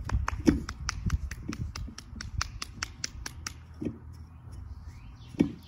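A rapid run of sharp clicks, about five a second, which stops about three and a half seconds in.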